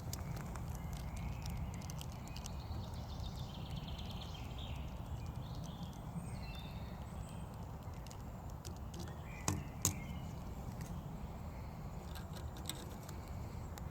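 Birds chirping and calling outdoors over a steady low rumble, with two sharp knocks about nine and a half seconds in.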